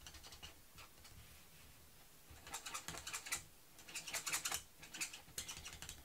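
Alcohol-marker tip rubbing on cardstock in quick short back-and-forth strokes, blending yellow colour into a stamped image. It comes in three scratchy spells of under a second each, starting about two and a half seconds in.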